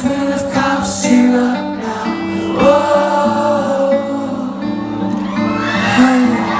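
A rock band playing live, with a male lead singer holding long sung notes over sustained guitar chords.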